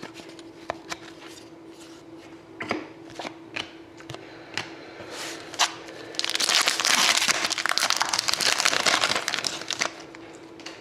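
Light taps and clicks of trading cards being handled, then about four seconds of loud crinkling from about six seconds in: a card pack's wrapper being crumpled and opened.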